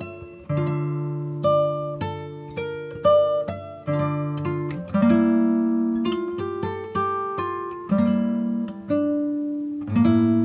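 Background music on acoustic guitar: fingerpicked notes, each plucked sharply and left to ring out, with low bass notes under a higher melody.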